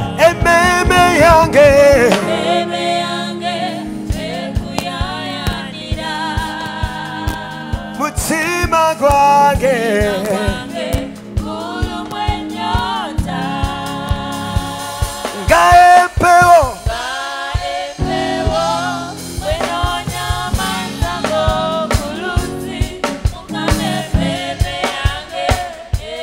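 Live gospel worship song: a lead singer's long wavering held notes over a choir, with a steady drum beat underneath.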